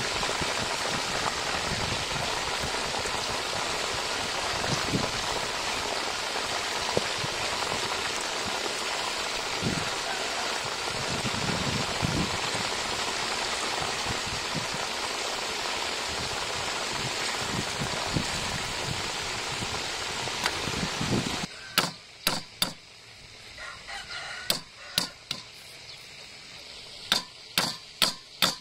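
Frogs deep-frying in a wok of hot oil: a steady sizzle. About 21 seconds in the sizzle cuts off, and a knife chops garlic on a wooden chopping board, a string of sharp knocks at uneven spacing, several in quick succession near the end.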